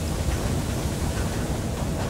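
Steady low rumble of an East German steam locomotive running along the track, heard from inside its cab.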